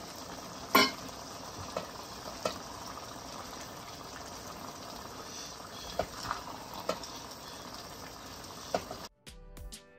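A pot of egusi soup simmering with a steady bubbling hiss while chopped kale is stirred in with a metal spoon, which clinks against the pot several times, loudest about a second in. Music starts abruptly near the end.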